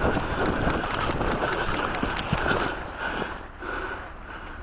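Footsteps through snow with the rustle of clothing and gear as a person moves, going quieter for the last second or so as he settles.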